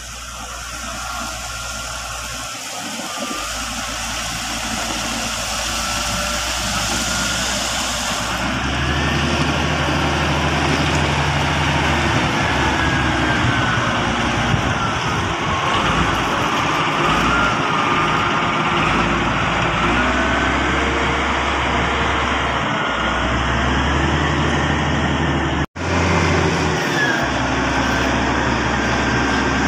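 Komatsu GD555 motor grader's diesel engine running, growing louder over the first several seconds as the machine comes close, with a high whine that wavers in pitch. The sound cuts out for an instant about 26 seconds in.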